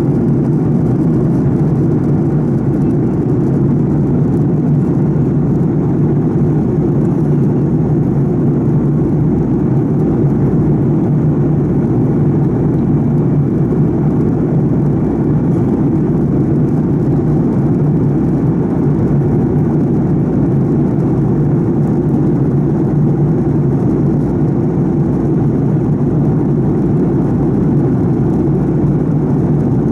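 A Fokker 70's rear-mounted Rolls-Royce Tay turbofan running steadily in flight, heard from inside the cabin next to the engine: an even, deep drone with no change in pitch or level.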